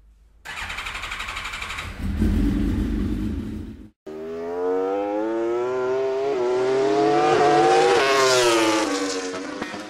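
Vehicle engine sound effect. A rapid rattle gives way to a deep revving rumble that cuts off suddenly about four seconds in. Then an engine accelerates, rising steadily in pitch, and peaks and falls away as it passes by, near the end.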